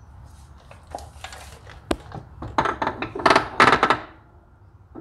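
Metal clinking and rattling as a new CV axle for a Polaris Sportsman 800 ATV is handled and pushed into the front hub: a few light clinks in the first two seconds, then a busier run of ringing metal clinks from about two and a half to four seconds in.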